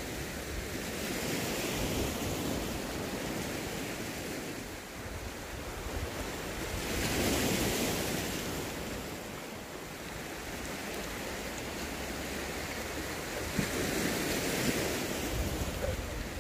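Sea waves washing onto the shore, surging in slow swells about every six seconds, loudest about seven seconds in, with wind buffeting the microphone.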